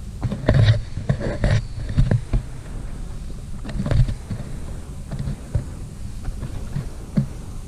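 A person shifting their weight on a vinyl inflatable air mattress floating on water: irregular rubbing and creaking noises from the mattress and clothing, loudest in the first second and a half and again about four seconds in, over a steady low rumble.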